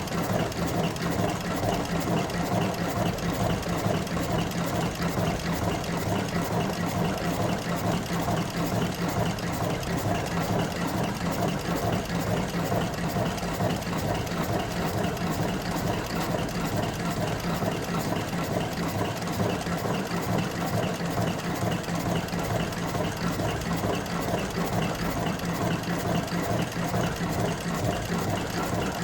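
Mechanical cigarette rolling machine running steadily: a fast, even clatter over a steady hum.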